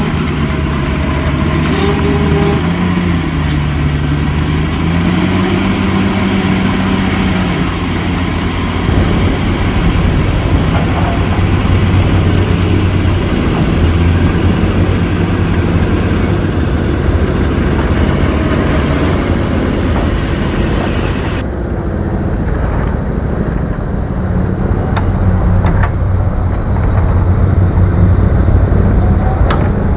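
A heavy earthmoving machine's diesel engine running under load, its pitch rising and falling as it is worked. The sound turns duller about two-thirds through, and a few sharp metallic clanks come near the end.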